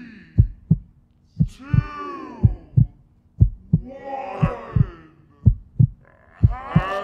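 Heartbeat sound effect, a double thump about once a second over a steady low hum. People are laughing and calling out over it.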